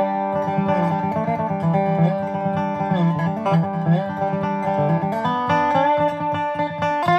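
Acoustic guitar music, picked notes over a steady bass line, with a few notes sliding in pitch.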